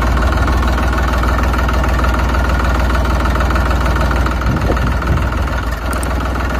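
Tractor engine idling steadily, a continuous low engine hum that eases slightly near the end.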